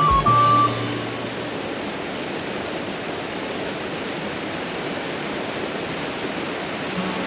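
Background music ends within the first second, leaving a steady, even rushing noise, like outdoor ambience of wind or running water.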